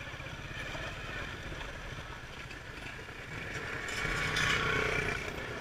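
Motorcycle engine running at low revs under the rider, a steady low pulse with some wind and road noise; it grows louder about three and a half seconds in as the bike pulls away, then eases off near the end.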